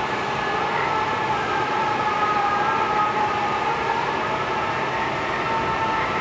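Granite CNC spindle spinning a diamond tool while an abrasive dressing stick is swept lightly across it: a steady grinding hiss with a faint whine that wavers slightly in pitch. This is the tool being dressed to take the lines out of its diamond face.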